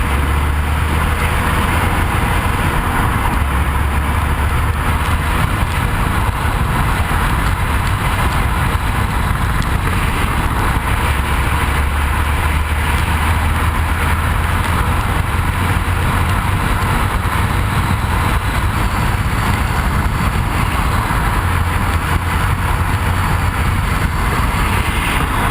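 Steady road and wind noise with a low rumble from a 2012 Hyundai Elantra on the move, picked up by a camera clamped under the front suspension.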